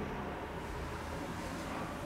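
Steady background hiss with a faint low hum: room tone, with no distinct sound event.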